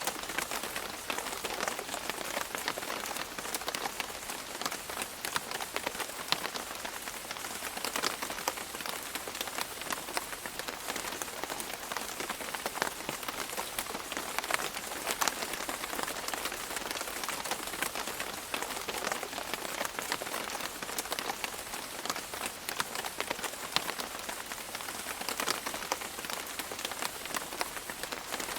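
Steady rain falling on a surface, an even hiss with many individual drops ticking and splashing.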